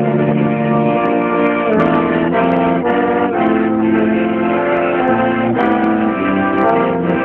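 Trumpet, slide trombone and accordion playing a tune together in held chords that change every half second to a second.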